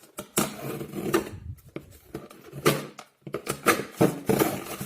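Cardboard shipping box being cut open with a knife: a series of irregular scraping and rustling strokes as the blade slices through tape and cardboard.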